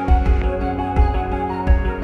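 Instrumental background music: sustained melodic notes over a soft low beat that falls a little under once a second.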